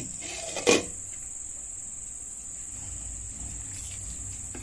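Steady high-pitched cricket chirring, with one sharp knock about a second in.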